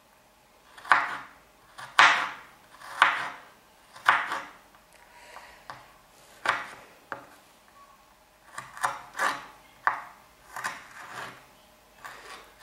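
Kitchen knife slicing fresh ginger into thin strips on a wooden chopping board, about a dozen separate cuts. They come about once a second at first, then after a pause as a quicker run near the end.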